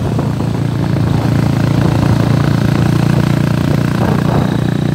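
Motorcycle engine running steadily at an even pitch while riding, with wind rumbling on the microphone.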